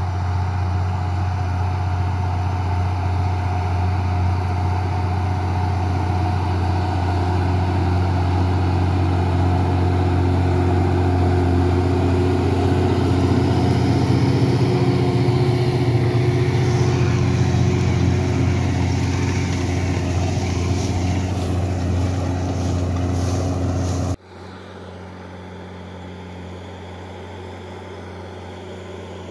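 Deutz-Fahr Agrotron M640 tractor's diesel engine working under load as it pulls a reversible plough, loud and close, its note rising for a while in the middle. About 24 seconds in it cuts abruptly to the same tractor ploughing far off, much quieter.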